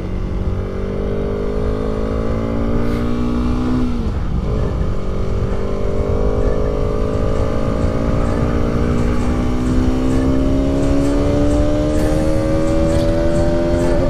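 Bajaj Pulsar RS200's single-cylinder engine accelerating under way, its note climbing through a gear. It shifts up about four seconds in and then pulls slowly higher through the next gear, over steady wind rumble on the bike-mounted microphone.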